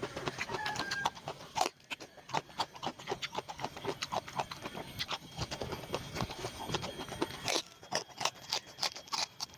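Close-miked eating sounds: wet chewing and lip smacking, a quick run of irregular mouth clicks several times a second.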